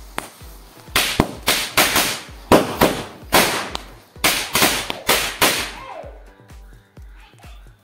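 Over a dozen sharp bangs and pops in quick succession, about five seconds of them, as bundles of matchstick heads in a burning matchstick chain flare and burst and throw matches across the ground. They stop near the end, leaving background music with a steady beat.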